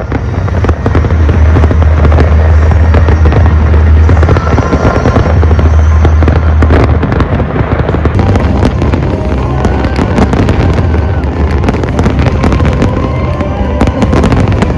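A dense barrage of fireworks, many bursts crackling and popping without a break, over music with a heavy steady bass.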